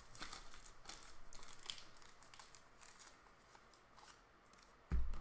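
Plastic trading-card wrappers and sleeves crinkling and rustling as cards are handled, busiest in the first couple of seconds, then a low thump near the end.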